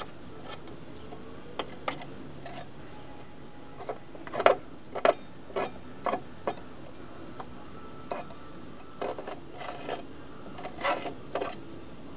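Short, irregular scraping strokes against the underside of a lawnmower deck as caked grass is scraped off. They come in two bunches, about four seconds in and again about nine seconds in.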